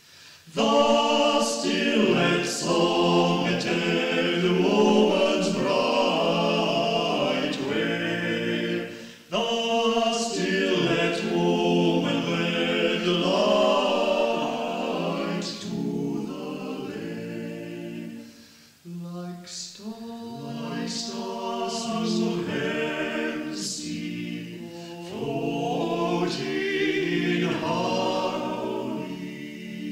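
An amateur choir singing, heard on an old reel-to-reel tape recording, with brief pauses between phrases about a third and two-thirds of the way through.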